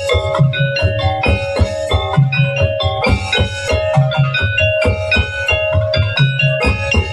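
Tongtek ensemble playing: struck percussion and drums beat a steady, busy rhythm under pitched melodic notes.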